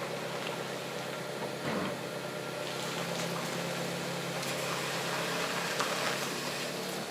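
Toyota Wish running with a steady engine hum, with brief clicks and a rise of higher-pitched noise over it partway through. This is the abnormal noise that the owner is recording.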